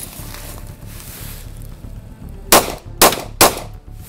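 Three 9mm pistol shots from an ice-covered CZ 75 SP-01, about half a second apart, starting about two and a half seconds in; the pistol is firing despite having been drenched and frozen with dry ice.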